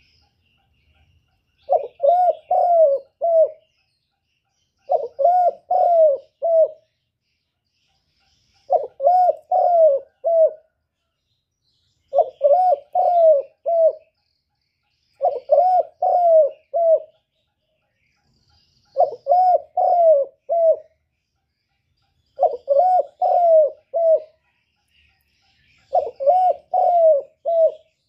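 Spotted dove cooing: eight song phrases about three and a half seconds apart, each a quick run of four or five low coos.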